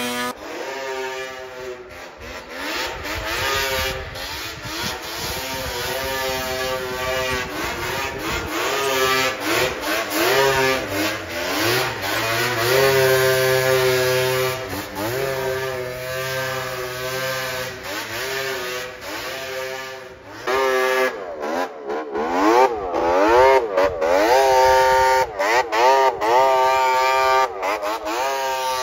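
Snowmobile engines revving up and easing off over and over as the sleds work through deep powder snow, louder with quicker throttle swings in the last third.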